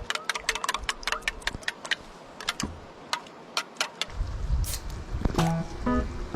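A quick, irregular run of light clicks and taps, like small utensils or objects being handled, then background music comes in about four seconds in.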